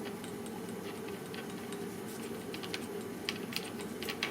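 Scattered light clicks and taps of small metal clutch parts being handled by gloved hands, more frequent in the second half and ending with a sharper click, over a steady low hum.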